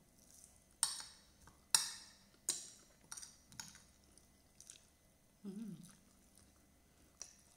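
Metal fork and spoon clinking and scraping on a plate of rice: a string of sharp clinks, roughly one a second, with a brief hummed "mm" about five and a half seconds in.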